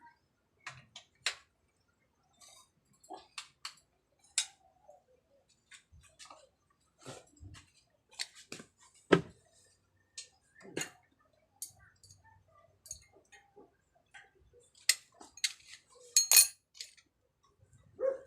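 Irregular metal clinks and knocks of tools and bicycle parts being handled during a repair, with a louder clank about nine seconds in and a quick cluster of sharp clinks near the end.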